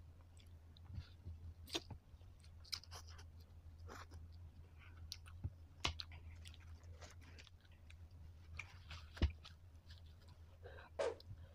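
Close-up mouth sounds of a person chewing spicy instant noodles, with scattered small clicks from the chopsticks, over a steady low hum.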